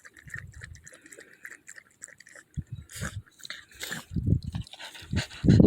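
A dog lapping water, a few quick laps at first, then scattered, irregular laps and small splashes.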